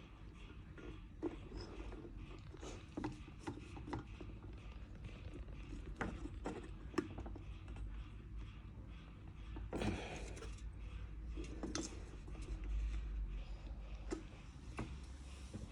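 Scattered light clicks and scrapes of hands and small tools working on an electric kettle's oxidised parts, with a longer scrape about ten seconds in.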